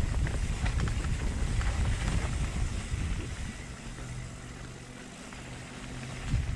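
Mountain bike being ridden along a dirt forest trail: wind rushing over the microphone and the bike rattling over the rough ground. About halfway through, a steady low buzz comes in and the overall noise eases a little.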